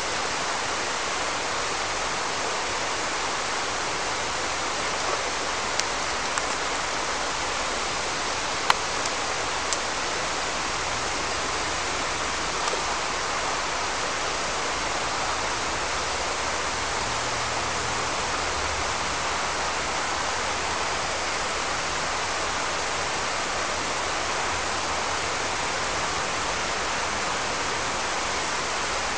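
Steady rushing of a shallow river flowing over stones. A few brief sharp clicks sound over it between about five and thirteen seconds in, the sharpest about nine seconds in.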